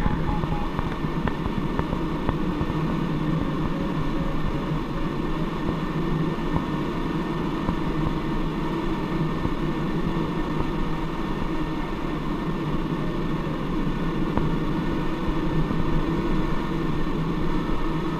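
Steady rush of airflow over a glider's canopy in flight, heard from inside the cockpit.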